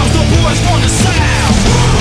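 Loud heavy rock music.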